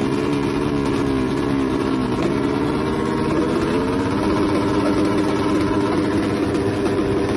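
Motorcycle engine running at low revs. Its pitch sags and lifts a little over the first few seconds, then holds steady.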